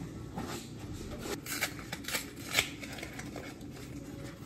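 Handling of a cardboard box: a run of short rustles and crinkles with light knocks, the sharpest about one and a half to two and a half seconds in.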